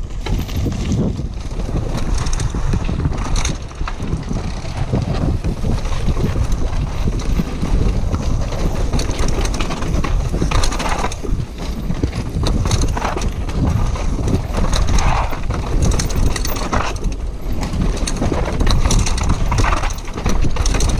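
Downhill mountain bike ridden fast down a dirt trail: a constant rumble of wind on the helmet camera's microphone, with the tyres scrubbing dirt and the chain and frame rattling and knocking over bumps and roots.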